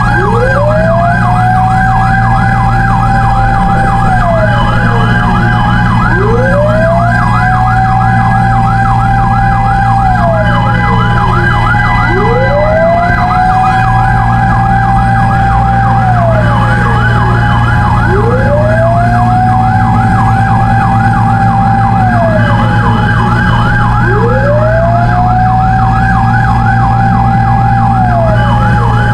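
Fire truck sirens sounding together over a steady engine drone. One is a slow wail that rises, holds and falls about every six seconds; the other is a fast yelp cycling about three times a second.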